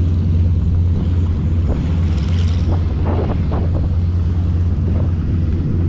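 Steady low drone of the Yak-18T's nine-cylinder radial engine in flight, with wind rumble on the microphone.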